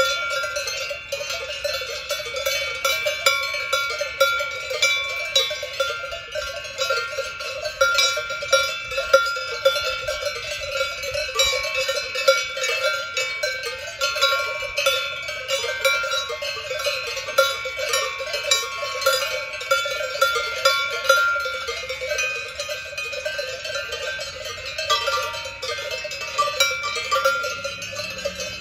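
Many cowbells of different pitches on grazing cattle, clanging and ringing irregularly and overlapping as the animals move their heads to crop grass.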